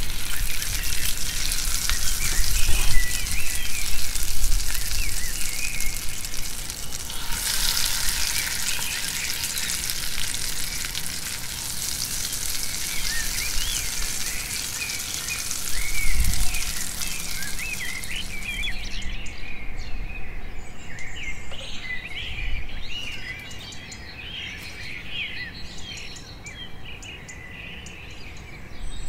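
Vegetables and grated carrot sizzling in a frying pan, with birds chirping throughout. The sizzling fades out about two-thirds of the way through, leaving the bird chirps, and a dull knock comes just past halfway.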